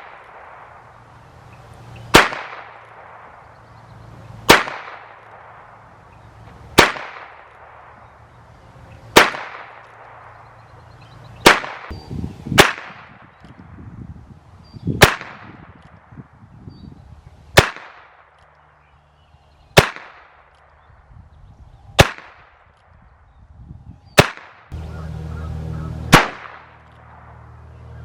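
Heritage Rough Rider .22 single-action revolver firing a dozen shots, one about every two seconds, each a sharp crack with a short echo.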